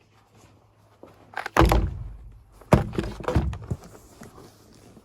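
A few heavy thuds indoors: a loud one about one and a half seconds in, then two more about a second apart, with lighter knocks around them.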